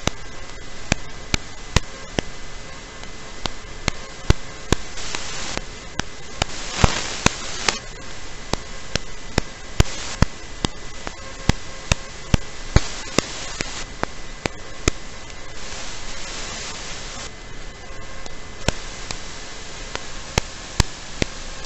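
Steady static hiss from an analog FPV video receiver's audio channel, broken by frequent sharp clicks. Several louder swells of hiss last a second or two each.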